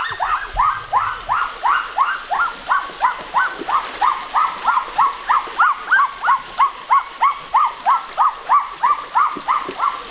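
A steady run of short animal cries, each rising and falling, repeated evenly about three times a second.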